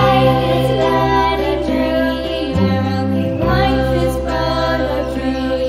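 Children's nursery-rhyme music, with held bass notes that change every second or so under a melody line.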